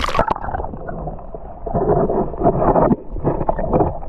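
Water splashing and sloshing close to the microphone in irregular, muffled surges.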